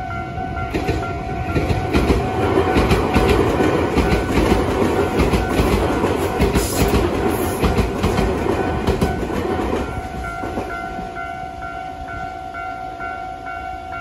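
Japanese level-crossing warning bell ringing steadily in a repeating two-tone pattern while a Tobu Isesaki Line train runs over the crossing, its wheels clattering over the rail joints. The train noise is loudest from about two to nine seconds in and dies away by about ten seconds; the bell stops near the end.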